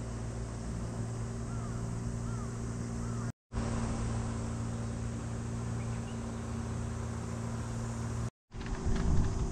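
Small electric fan running with a steady motor hum. Three faint chirps, like a small bird, come about two seconds in, and a few brief knocks near the end.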